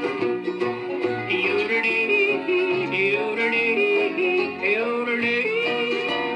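Country song played back from a 33 rpm lathe-cut disc: a wordless yodel with gliding pitch over a string-band accompaniment.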